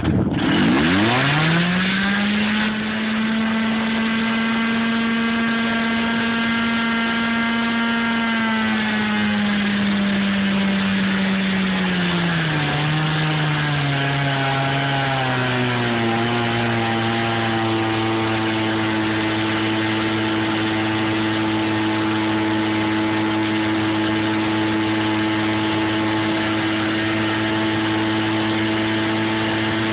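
Portable fire-pump engine revving up sharply as it opens up, running at a steady high speed, then slowing in steps between about eight and sixteen seconds in and settling to a lower steady speed as the pump works the hose line.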